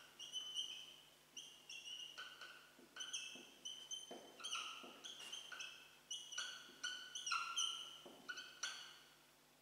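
Dry-erase marker squeaking on a whiteboard as words are written: a quick run of short, high squeaks with brief pauses between strokes.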